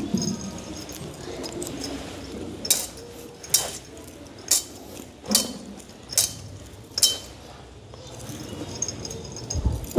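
Metal thurible chains clinking in six evenly spaced, ringing strikes about a second apart, as the censer is swung in three double swings to incense the Gospel book.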